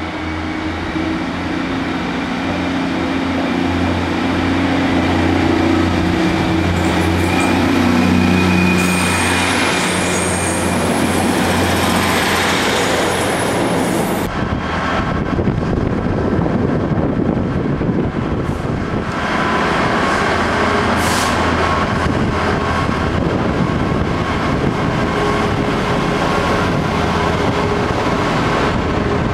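Diesel multiple unit running in, its engine droning steadily with a high wheel or brake squeal from about seven seconds in. About halfway through, this changes suddenly to the steady rumble of a Freightliner coal hopper train's wagons rolling through on the adjacent line.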